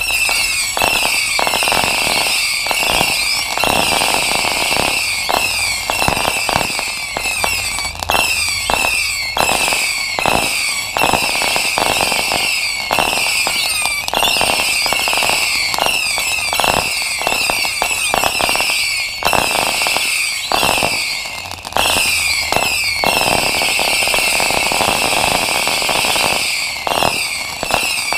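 Weco 'Headhunter' firework battery firing shot after shot in quick succession. Many whistles, each falling in pitch, overlap with the bangs of the launches. There is a brief lull about three-quarters of the way through.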